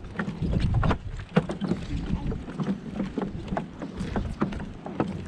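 Footsteps knocking on a wooden boardwalk, irregular and about three a second, with wind buffeting the microphone, heaviest in the first second.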